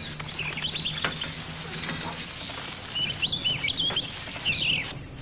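A small bird chirping: short, quick high calls in a few clusters, over a steady background hiss.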